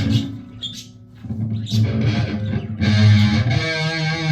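Electric guitar in drop A tuning playing a low two-finger power chord: the tail of one strum dies away, then the chord is struck again about a second in and left to ring, with a brighter, higher ringing near the end.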